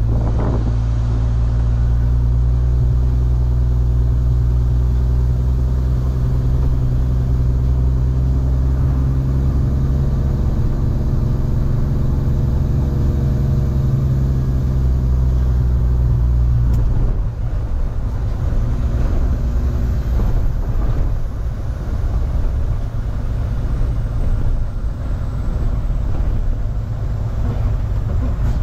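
Tractor-trailer's diesel engine running steadily under way, its pitch drifting slowly. About seventeen seconds in, the deep drone drops away and the sound turns rougher and more uneven.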